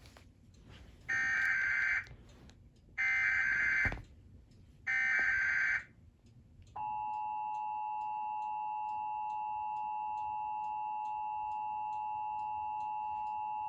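Emergency Alert System signal from a television: three short bursts of the screeching digital header data that opens an alert, then about seven seconds in the steady two-tone attention signal starts and holds.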